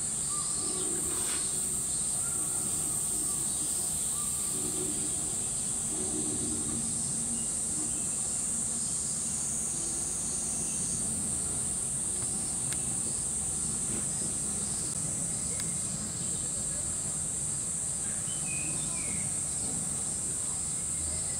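Steady high-pitched drone of cicadas, even and unbroken, with faint people's voices underneath.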